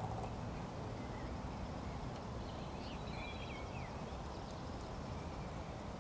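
Outdoor ambience: a steady low rumble with a few short bird chirps about halfway through.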